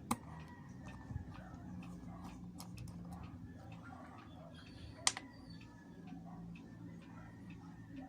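Small irregular clicks and taps of tools and plastic parts being handled while a GoPro Hero 4 Silver's lens is taken apart and replaced, with a sharper click at the start and another about five seconds in, over a low steady hum.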